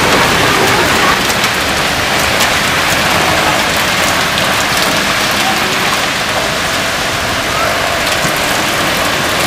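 Heavy rain pouring down onto a road and pavement: a dense, steady hiss that holds even throughout.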